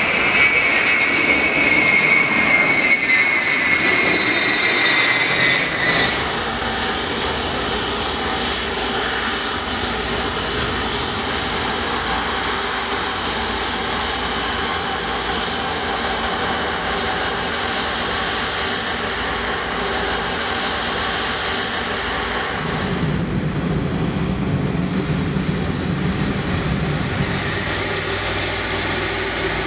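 Ilyushin IL-76TD's four turbofan engines whining on its landing approach, two high tones falling slightly, cutting off about six seconds in. After that comes the steadier hum of an Airbus A330-300's jet engines as it taxis, with a deeper hum swelling for a few seconds near the end.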